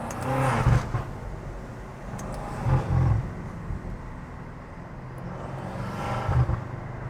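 BMW F90 M5's twin-turbo V8, fitted with aftermarket intakes and exhaust, running under way with a steady drone, rising in three short bursts of revving: near the start, about three seconds in and about six seconds in.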